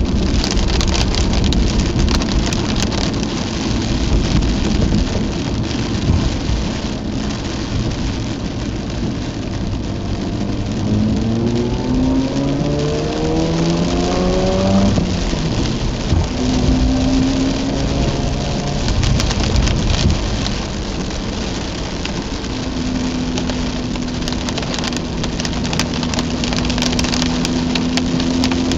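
Mazda RX-8's twin-rotor rotary engine running while driving through torrential rain, with heavy rain hitting the car and tyres hissing through standing water. About halfway through, the engine note rises as the car accelerates, then drops sharply at a gear change, and it holds a steady note near the end.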